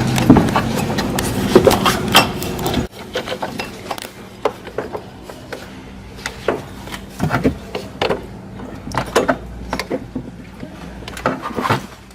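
Scattered clicks, knocks and light rubbing of hands and metal parts while a new timing belt is fitted around the pulleys of a VW Polo engine. For the first three seconds a steady background hum runs under the knocks, then cuts off suddenly.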